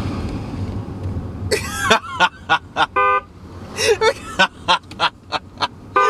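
A short car-horn honk, a recorded horn sound played through a small Bluetooth speaker inside the car, about three seconds in. Short bursts of laughter come before and after it.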